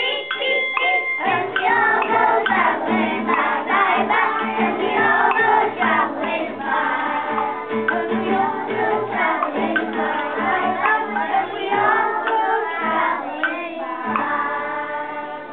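A group of young children singing a song together in unison. A short steady ringing tone sounds during the first second.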